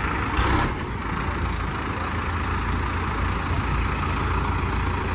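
Diesel engine of a Kartar tractor running steadily at low revs as the tractor is driven slowly, with a brief louder noise about half a second in.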